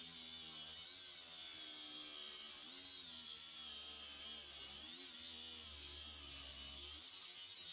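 Ryobi 18V One+ HP brushless angle grinder with an abrasive cut-off wheel cutting through a steel bolt. The motor runs with a steady high whine, and its pitch sags and recovers a few times as the wheel bites into the metal under load.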